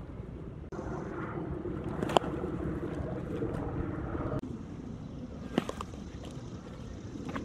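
Two sharp smacks of a baseball during catcher's drills, about two seconds and about five and a half seconds in. Under them runs steady outdoor background noise that jumps in level at two cuts.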